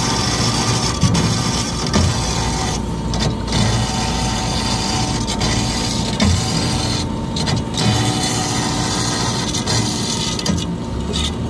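Cosen AH-250H horizontal band saw running, its blade cutting through metal stock with a steady noisy hiss that dips briefly in its top end about three and seven seconds in.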